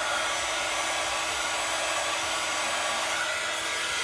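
Embossing heat gun running steadily with a hair-dryer-like blowing and a faint low hum underneath, heating the cardstock to melt the embossing powder.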